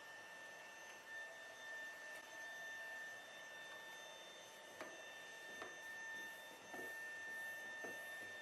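Faint steady high-pitched electronic whine over low hiss, with a few soft taps about five and six seconds in.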